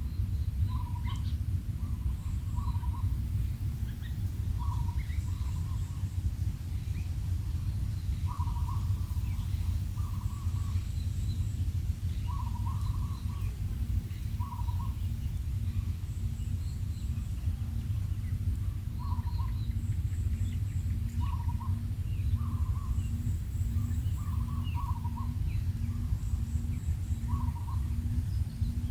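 Quail giving short, soft calls, one every second or two, over a steady low rumble.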